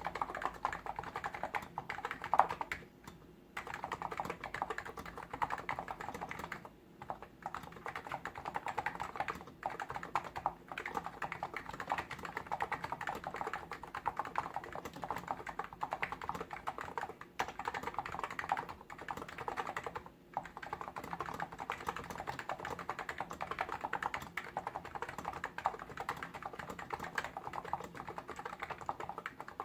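Hansung GTune CHL8 tenkeyless electro-capacitive keyboard being typed on in a fast, steady stream of keystrokes, broken by a few brief pauses.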